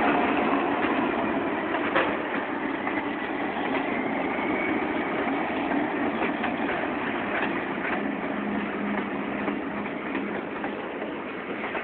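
A freight train led by two EMD GP35 diesel locomotives, each with a turbocharged 16-cylinder engine, running past at close range. The steady sound slowly fades as the locomotives move on and the freight cars follow.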